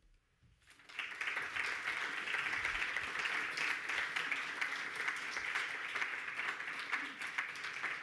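Audience applauding: many hands clapping together, starting about a second in and keeping up steadily.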